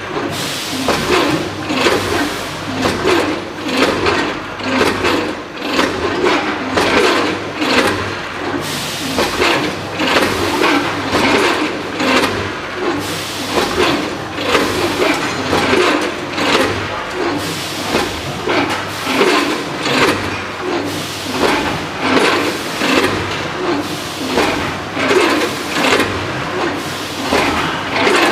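Automatic food bagging machine running in production, a mechanical stroke repeating about once a second over a steady running noise.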